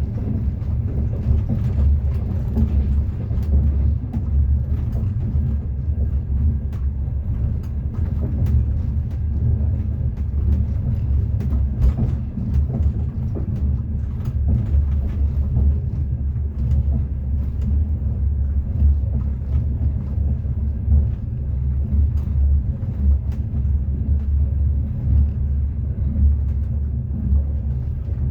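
Steady low rumble of train wheels running on the rails, heard from inside a moving passenger carriage, with occasional faint clicks.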